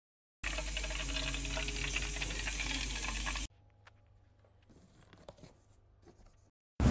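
Philips HD9255/90 air fryer running, a steady hissing whoosh of its fan with sizzling for about three seconds, which cuts off suddenly. Faint light taps of cardboard box packaging follow.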